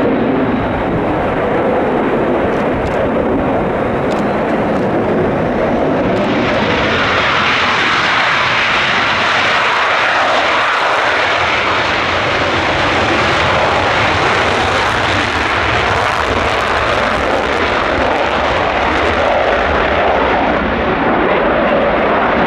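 Loud, continuous jet noise from an F-35A Lightning II's single F135 turbofan engine; about six seconds in the sound turns higher and harsher and stays that way.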